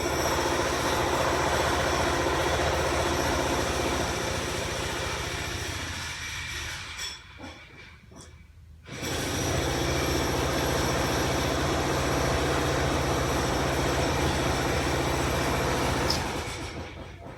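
Cat purring loudly and steadily close to the microphone, a low pulsing rumble, while kneading. The purr drops away for a moment around the middle, starts again and fades near the end.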